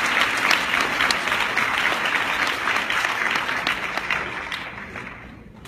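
Audience applauding: dense clapping from many hands that dies away over the last second or so.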